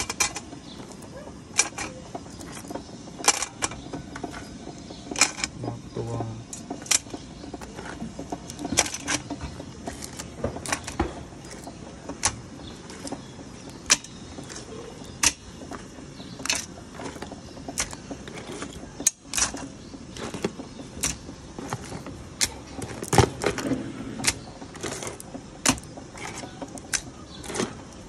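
Cooked crab shells clicking and clacking against each other and the stainless steel pot as they are handled, in irregular sharp knocks about one or two a second over a steady low background.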